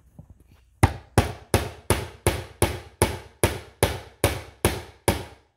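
Claw hammer striking a nail into a pine board: about a dozen steady blows, roughly three a second, starting about a second in.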